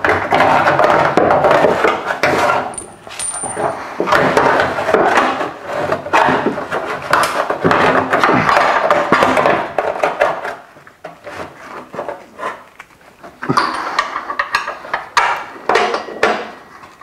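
Metal scraping and clinking as a steel tow-bar crossmember is shifted by hand and a bolt is worked against its painted threads. The scraping is dense for about the first ten seconds, then gives way to quieter, separate clicks and clinks.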